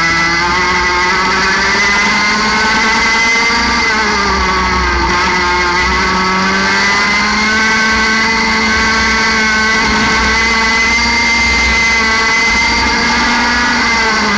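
60cc two-stroke kart engine at racing revs, heard onboard. Its pitch climbs, dips briefly about four seconds in, then winds up again and holds steady near the top of its rev range.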